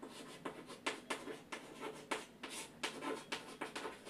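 Chalk writing on a chalkboard: a quick, uneven run of short scratches and taps, several a second.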